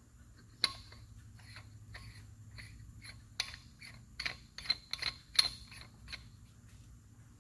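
Irregular clicks and ticks as the JLT 3.0 catch can's canister is threaded back onto its head by hand: one sharp click under a second in, then a quick run of clicks between about three and a half and six seconds in.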